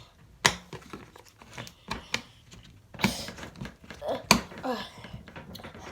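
Handling noise: about four sharp clicks and knocks of objects being set down or handled, with brief faint voice sounds between them.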